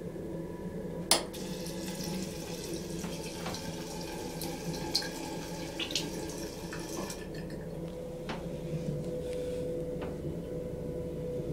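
Sensor tap on a train washroom sink: a sharp click about a second in as the water comes on, then water runs and splashes into the stainless-steel basin for about six seconds and stops. A steady low hum lies underneath.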